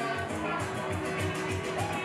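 Caribbean band music with plucked guitar over a steady bass beat.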